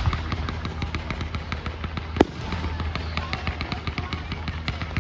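Fireworks display: aerial shells bursting overhead in a dense, rapid crackle of many small pops, with one louder boom a little past two seconds in.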